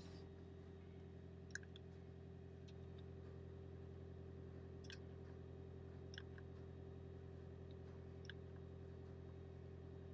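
Faint, steady low hum inside the cabin of a switched-on Toyota Sienta hybrid, with a few soft clicks scattered through.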